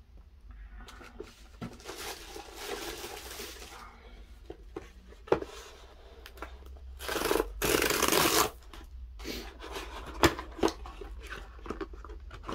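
Cardboard packaging being torn open by pulling its perforated tear strip: a loud tearing rip lasting over a second about seven seconds in, after a softer scraping stretch a couple of seconds in. Scattered knocks and clicks of boxes being handled.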